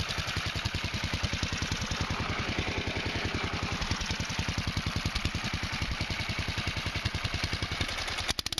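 Predator 420cc single-cylinder four-stroke go-kart engine, fitted with an open header pipe and a cone air filter, idling with a steady, even pulsing beat. Near the end the beat briefly breaks up.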